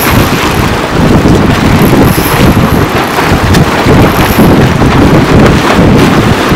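Strong wind buffeting the microphone: a loud, steady, rough rumble with no pauses.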